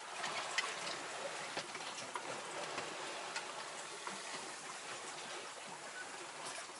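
Sea water rushing along the hull of a Hurley 22 sailing yacht under way, a steady hiss with light ticks now and then.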